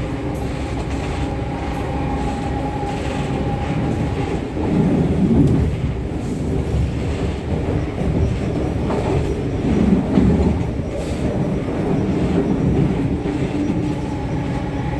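Delhi Metro Magenta Line train running on elevated track, heard from inside the carriage: a steady rumble of wheels on rail. A thin steady whine is heard in the first few seconds and again near the end, and the rumble swells louder about five and ten seconds in.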